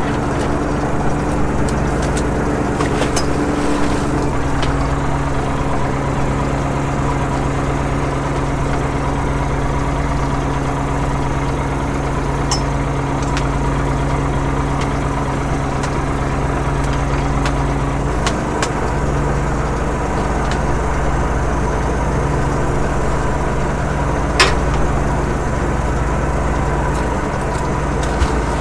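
Fishing boat's engine and line-hauling gear running with a steady drone, its pitch stepping slightly about four seconds in and again at about eighteen seconds. A few sharp clicks sound over it, the clearest near the end.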